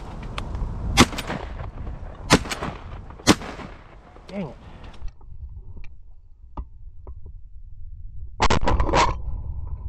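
Three shots from a 12-gauge shotgun, about a second apart, fired at Canada geese passing overhead; the hunter hits one goose. A shorter, denser loud burst follows near the end.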